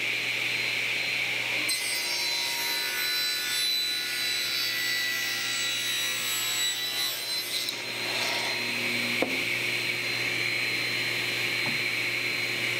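Table saw running steadily, its blade cutting a steep angle through a board pushed along a fence jig. The cut sounds from about two seconds in to about eight seconds, then the blade spins on freely.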